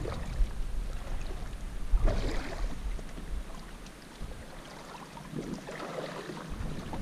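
Wind rumbling on the microphone over the sound of river water, with two brief swells of noise about two seconds and six seconds in.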